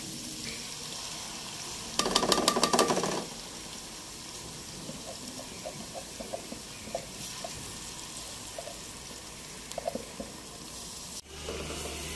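Tomato paste poured into hot oil in a pan sets off a loud burst of sizzling about two seconds in, lasting about a second. Steady frying sizzle follows, with light scattered taps of a spatula.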